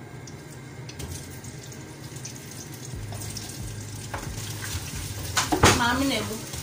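Chopped onions, tomatoes and green peppers sizzling as they are tipped into hot oil in a frying pan and stirred with a wooden spatula, growing louder from about three seconds in, with a loud burst near the end.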